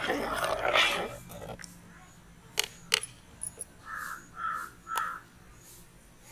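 A crow caws three times, about half a second apart. Before that come two sharp clicks, and in the first second a short jumble of louder sound.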